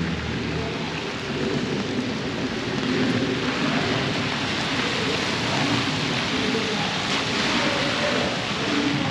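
Steady rain hissing on wet street pavement, the hiss swelling a little through the middle of the stretch.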